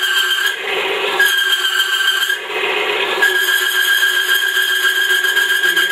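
Electric-motor grease test rig running, with a loud, steady, high-pitched metal-on-metal squeal from the lever-loaded test block rubbing on the spinning arbor and bearing, lubricated with SuperTech marine grease. The squeal drops out briefly twice, about half a second in and again after two and a half seconds, while the motor keeps running.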